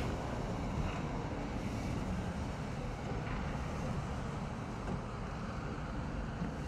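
Vintage Høka tram moving slowly on depot tracks: a steady low rumble.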